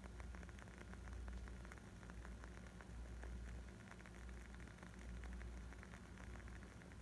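Wood fire crackling: many small pops and snaps in quick succession over a low, steady rumble.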